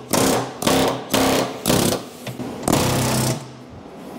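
Pneumatic air chisel (chisel gun) hammering into car body sheet metal in about five short bursts, chiselling through the welded panel to cut out crash-damaged front-end structure; the last second is quieter.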